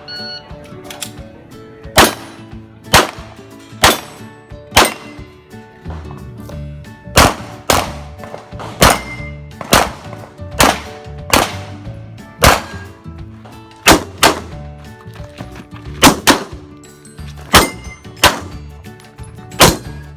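Handgun shots fired in a steady string, roughly one a second with some quick pairs, about twenty in all, over background music.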